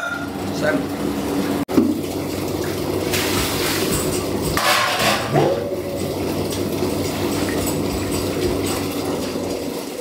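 Water running from a tap into a sink while large aluminium pots are handled and knocked about, with a steady hum underneath. The water grows louder about three seconds in.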